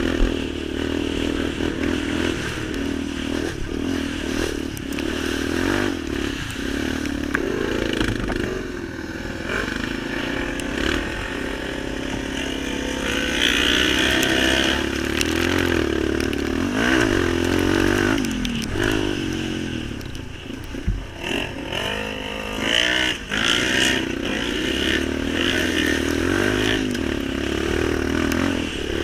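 Off-road vehicle engine running while riding, its pitch rising and falling again and again as the throttle is worked, with knocks and rattles from the machine over rough ground.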